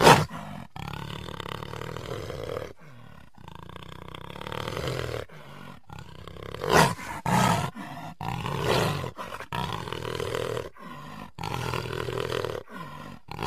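Tiger sound effects from a film soundtrack: a run of growls and roars broken by short pauses, the loudest coming about seven and about nine seconds in.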